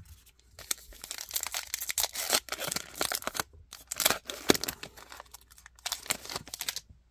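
Plastic wrapper of a baseball card pack crinkling and tearing as it is opened and handled, in a run of short rustles that stop shortly before the end.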